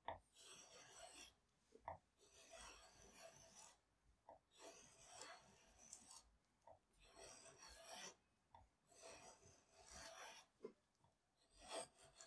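Draw knife shaving wood in repeated strokes, about one every two seconds, each a faint scraping hiss as a shaving peels off, some opening with a light knock.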